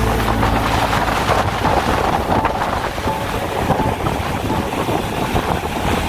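Heavy surf breaking and washing up the beach, with wind buffeting the microphone.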